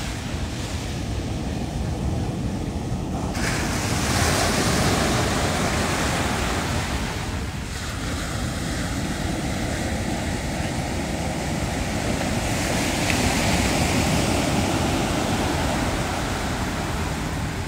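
Ocean surf breaking and washing up the sand, with wind buffeting the microphone. The wash swells about four seconds in and again near the end.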